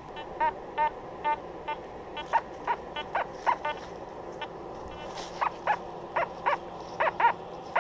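A dog barking repeatedly in short high yaps, about two or three a second.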